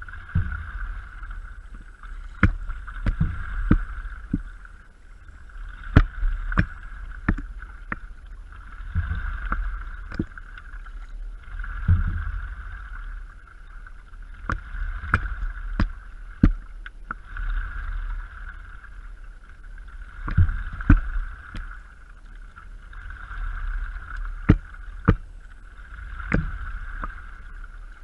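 Stand-up paddleboard being paddled: water swishing in a swell about every three seconds with each paddle stroke, over a low rumble and scattered sharp knocks.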